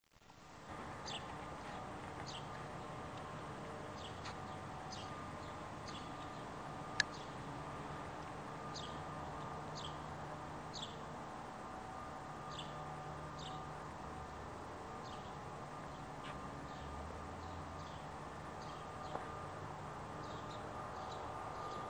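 Short, high, falling chirps of a bird repeating every half second to a second over a steady hum, with one sharp click about a third of the way in.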